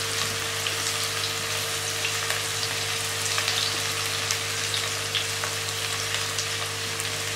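Chopped spring onion whites sizzling in hot oil in a nonstick karahi, stirred with a silicone spatula, with a steady crackle of small pops as they are lightly fried. A low steady hum runs underneath.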